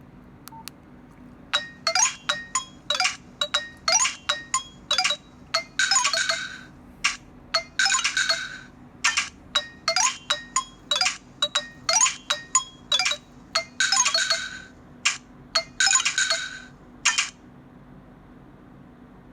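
Nokia 105 mobile phone playing a ringtone through its small built-in speaker: a melody of short, bright notes with a few longer held ones, which starts a second and a half in and stops a couple of seconds before the end.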